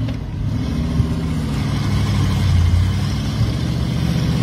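GM LQ9 6.0-litre small-block V8 in a rock-crawling Jeep CJ, running under load as the Jeep climbs over rocks, with the revs rising a little near the end.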